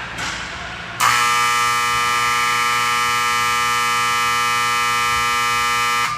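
Ice rink's electric buzzer sounding one steady, loud, reedy tone for about five seconds, starting suddenly about a second in and cutting off sharply: the horn that ends a period of play.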